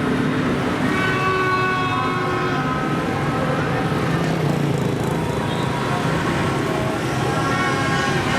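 Dense street traffic of motorbikes with engines running and many horns and toots sounding at different pitches over one another, the honking of a celebratory street parade.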